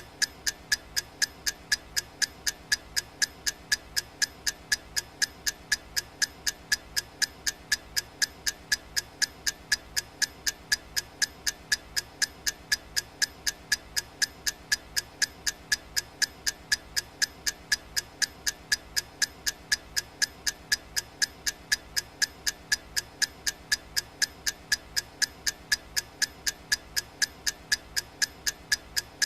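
Clock tick sound effect ticking steadily and evenly, about two sharp ticks a second.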